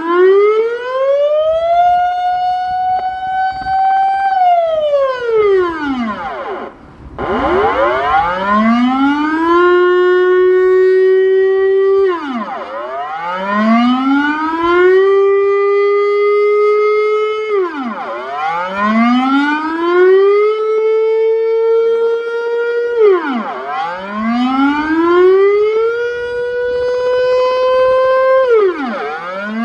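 Dutch civil defence air raid siren sounding its monthly test signal: a loud wail whose pitch climbs, holds steady for a couple of seconds, then falls, over and over about every five to six seconds, dropping lowest about seven seconds in before winding back up.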